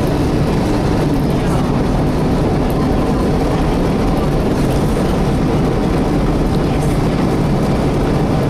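Steady drone of a Volvo B7TL double-decker bus heard from inside the saloon while under way: the rear-mounted diesel engine and its radiator cooling fan running, with road rumble.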